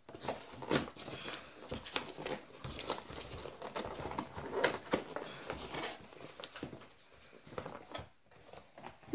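Cardboard shipping box being torn open by hand: irregular crackling and ripping of cardboard and paper, dying down to a few faint rustles near the end.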